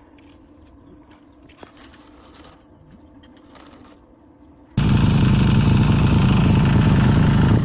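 Faint clicks and scrapes, then almost five seconds in a loud, steady, engine-like rumble starts abruptly and keeps running.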